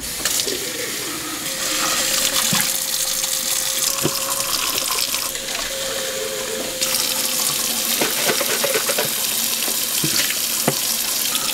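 Kitchen sink faucet running into plastic bottles held under it as they are rinsed out, with a few light knocks of plastic.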